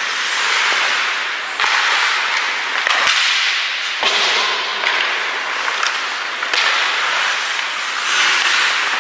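Hockey skate blades scraping the ice in long hissing strokes that start sharply and fade, about every two to three seconds, with one sharp click about three seconds in.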